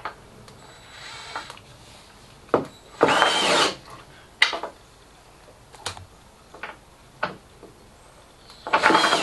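Electric screwdriver turning a flexible drive shaft to run in a horizontal clamp's 8 mm threaded rod, in two short bursts, about three seconds in and near the end, each whirring up and down in pitch. A few light clicks come between the bursts.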